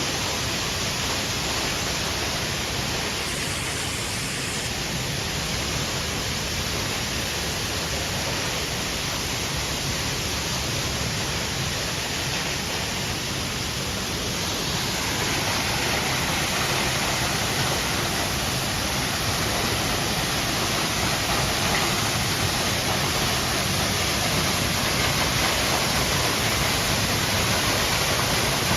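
Waterfall rushing steadily, a little louder from about halfway through.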